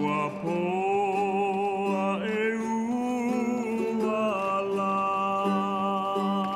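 Background music: a slow melody of held notes that slides up into a new note at the start and again about two seconds in, over a steady low note.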